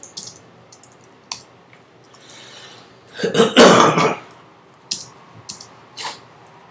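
Computer keyboard keystrokes, a few scattered clicks. About three seconds in a person clears their throat, the loudest sound, lasting about a second.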